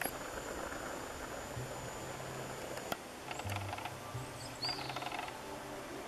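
Short bird chirps, a couple of times about halfway through and near the end, over a steady background hiss.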